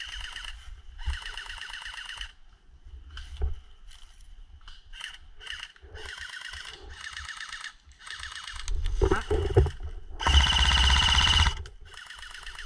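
Airsoft guns firing a string of short full-auto bursts, each a fast, even rattle with a high whine under it. The closest and loudest burst comes about ten seconds in and lasts just over a second.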